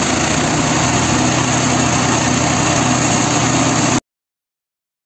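Petrol engine of a GTS 1500E tube and cardboard shredder (chipper) running steadily, then cutting off abruptly about four seconds in.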